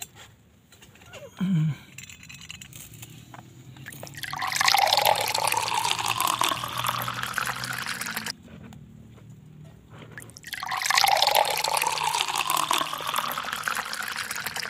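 Freshly boiled water poured from a metal pot into a plastic cup of coffee powder, twice, each pour lasting about four seconds and rising in pitch as the cup fills.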